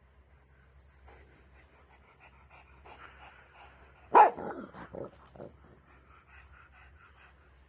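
Pug sniffing rapidly with its nose pressed into a sofa crease. About four seconds in it gives one sharp bark, then three or four shorter, weaker calls, then goes back to sniffing.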